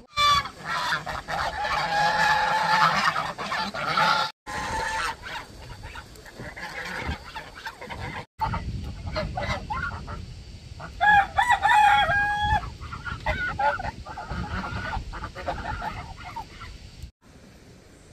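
Domestic geese honking repeatedly, in loud bouts near the start and again around the middle, broken by a few sudden brief dropouts.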